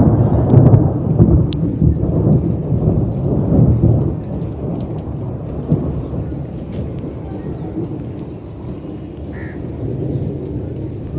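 Thunder rumbling: a loud low roll that is strongest over the first few seconds, then slowly dies away, with rain falling.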